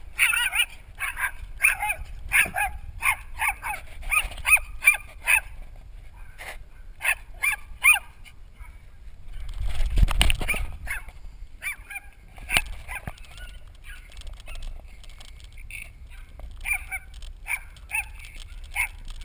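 Small dog barking at a bicycle, a rapid string of yaps about two a second, then more scattered barks. A loud rush of wind and road noise comes about halfway through.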